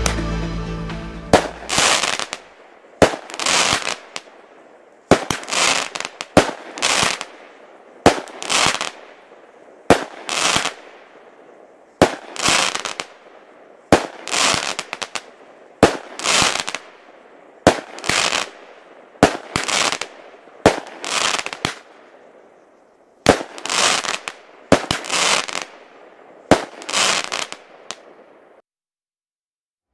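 WECO 'Aligator' 15-shot consumer firework battery firing shot by shot, each shot a sharp launch pop followed about half a second later by the bang of the aerial burst, roughly one every one and a half to two seconds, with a slightly longer pause about two thirds of the way through. The last shot goes off about a second before the end.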